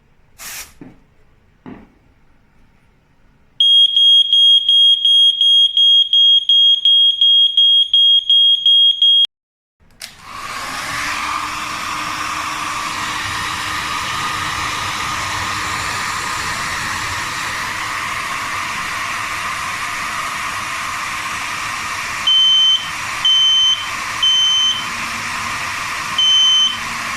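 A combined photoelectric smoke and heat alarm (SR-820DHS), first some light clicks, then a piercing high beeping at about three beeps a second for roughly six seconds, which cuts off. A steady blowing hiss of a hot-air blower then starts and runs on, and near the end the alarm beeps four more times over it as its 57 °C heat sensor trips.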